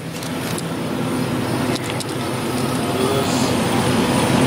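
Car engines idling in an enclosed parking garage: a low, steady rumble that slowly grows louder.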